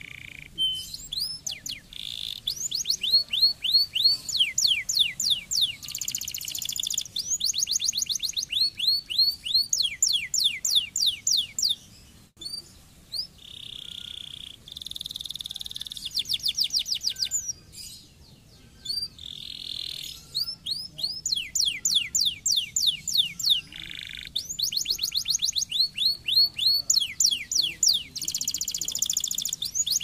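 Domestic canary singing a long, loud song made of rapid trills, each a quick run of falling sweeps, with a few held whistled notes between phrases and short breaks about twelve and eighteen seconds in.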